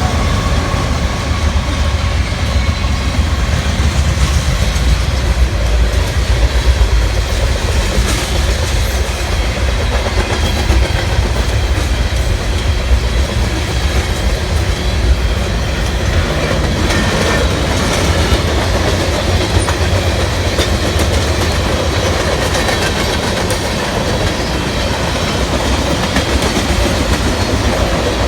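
Freight train cars rolling past: a steady, loud low rumble with the wheels clacking over the rail joints.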